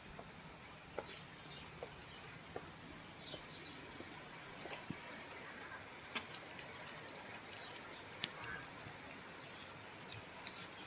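Light rain falling steadily, with scattered sharp drops ticking and dripping close by.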